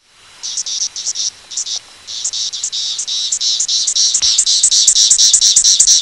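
Magicicada septendecula, a 17-year periodical cicada, singing: a rhythmic series of short, high, pulsed buzzes, uneven at first, then quickening to about five a second and growing louder.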